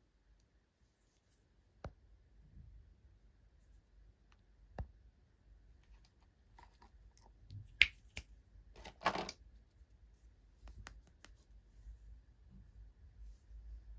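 Scattered small clicks and taps of hands handling small plastic toy pieces and packaging, with a short crinkle of packaging about nine seconds in; the sharpest click comes just before it.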